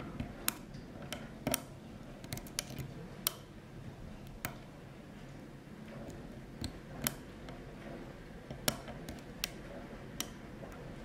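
Small, sharp metallic clicks and taps, irregularly spaced, from a hook pick working the pin stacks of an old GEGE five-pin cylinder lock held under heavy tension: the pick lifting pins and pins setting at the shear line.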